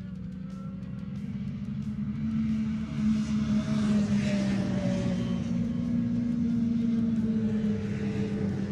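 A snowmobile engine driving past, a steady drone that swells over about two seconds, holds, and eases off near the end, heard from inside a fabric ice shanty.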